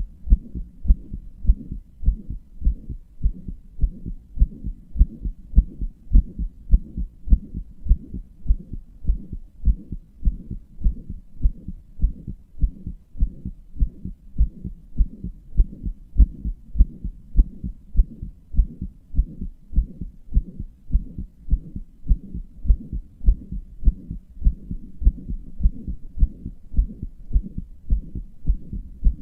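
A human heartbeat heard close up: a steady, regular run of low thuds with a low hum between the beats, which the owner describes as a murmur.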